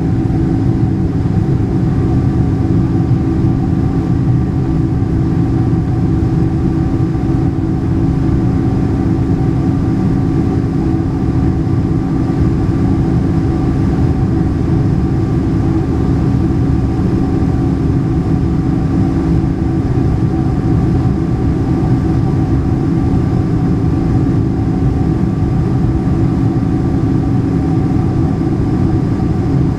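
Cabin noise of a Boeing 747-400 in its climb after takeoff: the steady drone of its four jet engines and the airflow past the fuselage, heard from inside the cabin, with a low steady hum. A faint high tone joins about two seconds in.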